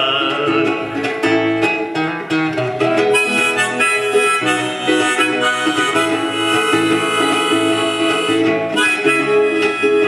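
Harmonica playing a melody of held notes over a strummed acoustic guitar.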